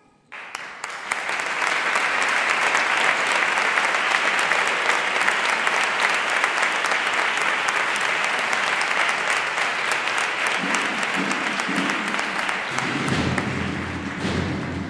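Audience applauding, the clapping starting suddenly and holding dense and steady. Near the end it thins as the band's low drums begin to roll.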